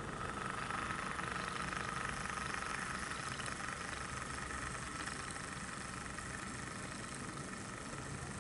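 Model Class 08 diesel shunter running slowly past the platform, giving a steady engine-like drone with a higher hum over it.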